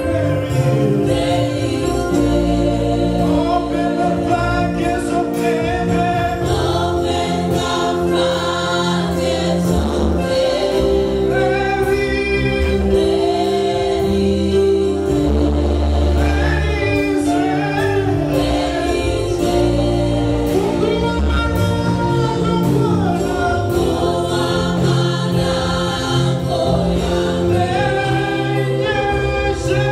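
Live gospel worship song: a lead singer and backing vocalists sing over an amplified band with a steady beat.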